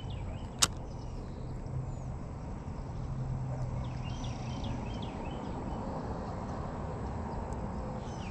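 Faint scattered bird chirps over a low steady rumble, with one sharp click about half a second in.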